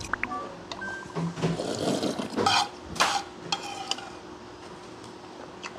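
Someone slurping broth from a tipped ceramic bowl, in noisy bursts, with chopsticks clicking and scraping against the bowl.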